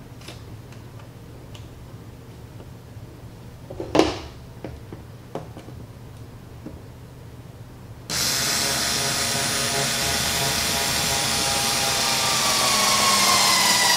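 A few light clicks and a sharp knock, then about eight seconds in a cordless electric screwdriver starts and runs steadily, driving a short screw to fix a D-ring hanger to the back of a picture frame. Near the end its whine drops in pitch as the motor slows.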